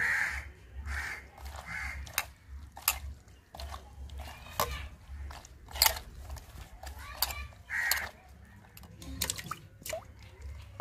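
Crows cawing, several times near the start and once about eight seconds in, over wet squelching and sharp clicks of a hand kneading cut squid pieces with turmeric in a steel mug; the loudest click comes about six seconds in.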